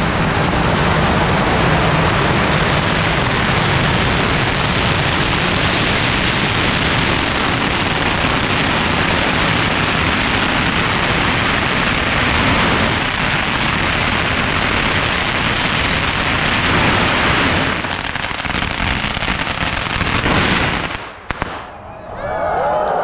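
A large set of firecrackers going off in one loud, continuous, dense crackle that cuts off about 21 seconds in.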